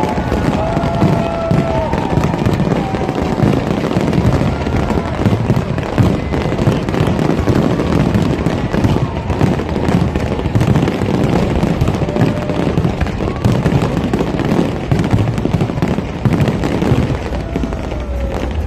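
A fireworks display going off in a dense, continuous barrage of bangs and crackles that hardly lets up.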